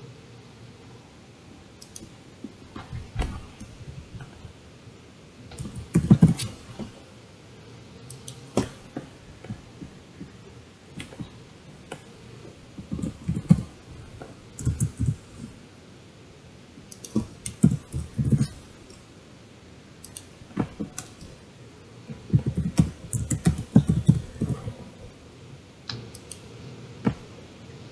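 Typing on a computer keyboard: short irregular runs of keystrokes with pauses between them.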